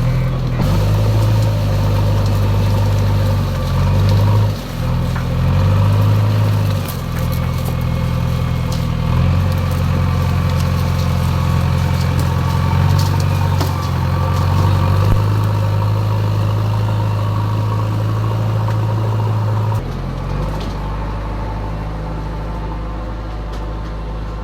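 A JCB backhoe loader's diesel engine runs continuously, its note shifting every few seconds as the machine works. About 20 seconds in it settles to a lower, steadier running.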